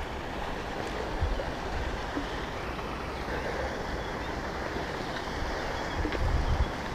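Water lapping around an inflatable float tube, with wind buffeting the microphone in low rumbling gusts about a second in and again near the end.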